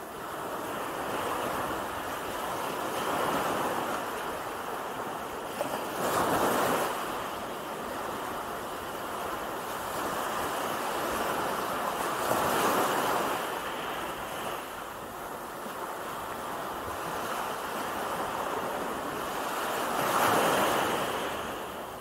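Gentle ocean surf: small waves breaking and washing up over a sandy shore, a steady hiss of water that swells with each wave, louder surges coming every six to eight seconds.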